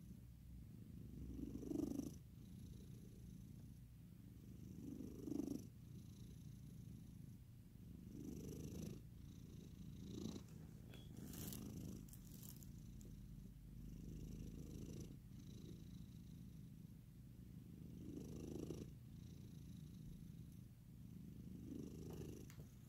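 A sleeping pet snoring softly, a low rumble that swells with each breath about every three to four seconds.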